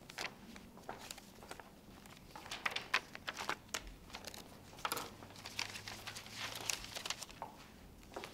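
Sheets of paper rustling and crinkling as they are handled, in short uneven spells with a few light clicks.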